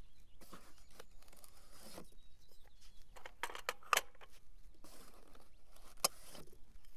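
Clay targets being taken from a cardboard box and stacked into the clay stack of an automatic trap thrower: rustling of the box and light clicks of the clays knocking against one another, with a few sharper clicks in the second half.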